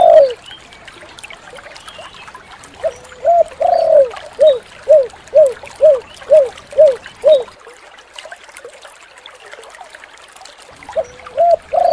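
Spotted dove (tekukur) cooing in its 'kuk 7' pattern. A phrase of a couple of low coos and one longer coo runs into a string of about seven short, evenly spaced coos, then a pause of a few seconds; a new phrase starts near the end.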